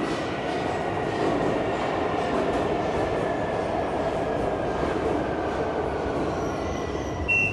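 Tehran Metro train running: a steady rumble and rush of wheels on rail with a faint high whine. A short high beep sounds just before the end.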